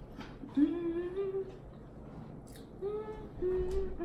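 A woman humming a few notes with her mouth closed while she eats, in two short phrases that step up and down in pitch, with a couple of faint clicks from the food between them.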